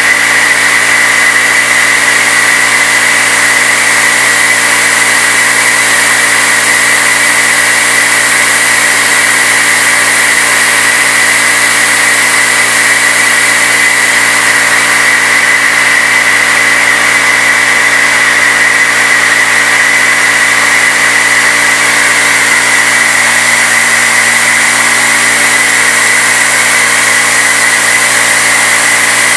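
CNC-retrofitted Bridgeport knee mill with a 3/8-inch end mill, spinning at 2200 RPM, cutting aluminum at a steady 8-inch-per-minute feed. It makes a loud, unchanging machining noise with a steady high-pitched tone over it.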